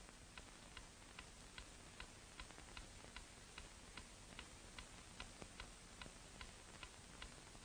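Faint, steady ticking of a clock, about two and a half ticks a second, over the hiss of an old soundtrack.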